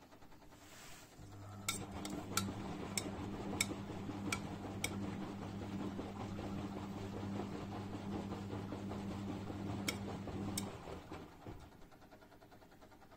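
A 1994 Bompani BO27027 washer-dryer tumbling a wash: the drum motor starts about a second in and hums steadily while the wet laundry turns. Sharp clinks come through, several in the first few seconds and two more near the end. The motor stops shortly before the end, as the drum pauses between turns.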